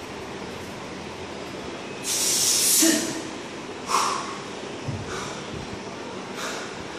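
A man's forceful hissing breath, loudest as one long exhale about two seconds in, from working hard through double kettlebell front squats. About four seconds in there is a short, sudden knock as the kettlebells are set down on the floor mat, followed by fainter puffs of hard breathing.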